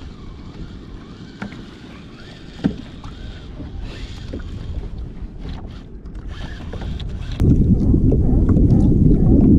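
Wind and water noise on a kayak's camera microphone, with a single knock about two and a half seconds in. About seven seconds in it turns to a much louder, low wind rumble on the microphone.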